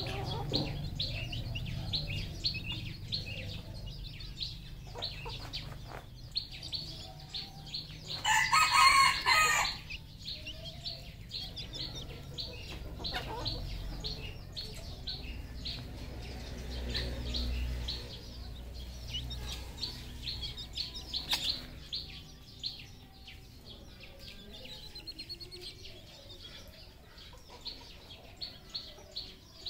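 Red junglefowl rooster crowing once, loud and close, about eight seconds in, over a steady background of many short, high chirps and some clucking from the flock.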